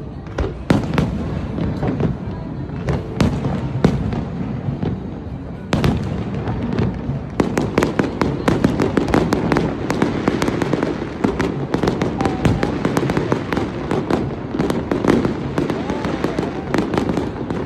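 Aerial fireworks going off in a barrage of sharp bangs and crackles, scattered at first and then coming thick and fast from about seven seconds in.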